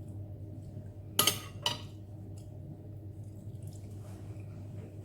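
Two short clinks of an eating utensil against a noodle bowl, a little over a second in and again half a second later, the first the louder, over a low steady hum.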